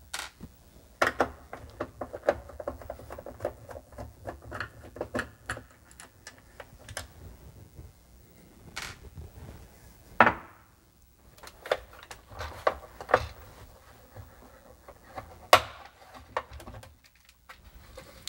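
Clicks and knocks of a screwdriver working the screws out of a Commodore 64's plastic bottom case, then the plastic case being handled, turned over and knocked on the bench, with one louder knock about ten seconds in. Near the end the top half of the case unclips cleanly, without a crack.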